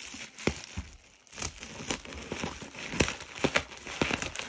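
Plastic bubble wrap crinkling and crackling as it is handled and cut open with scissors, with many irregular sharp crackles.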